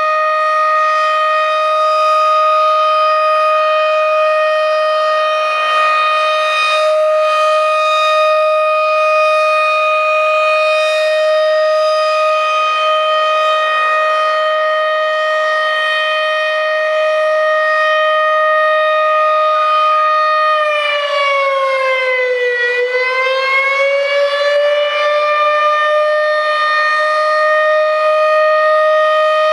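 Federal Signal Thunderbeam tornado siren sounding its steady signal for a test: one loud, held tone with strong overtones. About two-thirds of the way through, the pitch sags for a few seconds, then climbs back to the steady tone.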